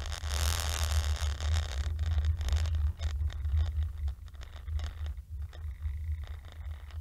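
Car cabin road noise picked up by a windscreen dashcam: a steady low rumble of engine and tyres with a hiss that thins out after about three or four seconds as the car slows toward a stop.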